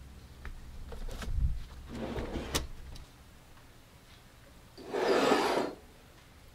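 Workshop handling sounds: a rolling tool chest's drawer rumbles shut with a thump and a sharp click. Near the end there is a noisy scrape lasting about a second.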